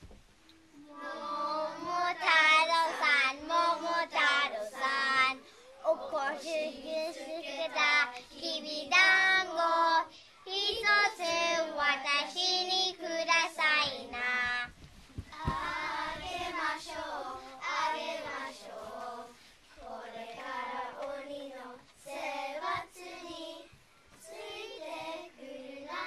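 A group of young children singing a song together in unison, louder for the first half and softer from about halfway through.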